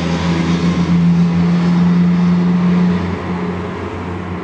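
A steady motor hum, loudest for the first three seconds or so and then fading.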